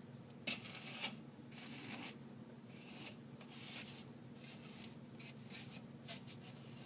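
Microwave oven running with a steady low hum, over which come several short scratchy rustles and a few brief ticks.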